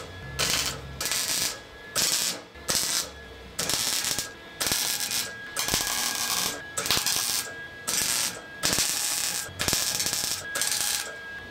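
MIG welder crackling in a string of short bursts, each under a second with brief pauses between, as holes in thin, rust-eaten sheet steel are plug-welded shut one at a time.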